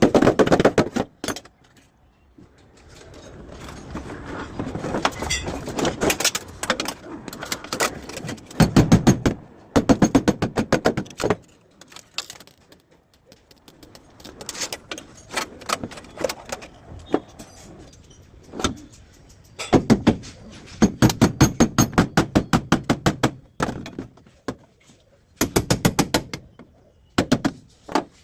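Bursts of rapid, sharp knocks, several a second, with quieter stretches of noise between.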